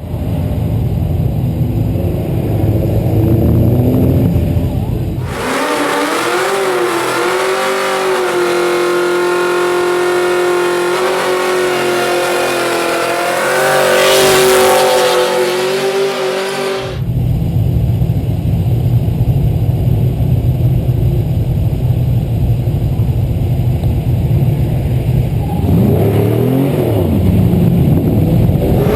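Performance car engines running loud. A deep low rumble gives way suddenly, about five seconds in, to a higher pitched engine note that swoops and then holds steady. The rumble comes back suddenly around 17 s, with a brief rev near the end.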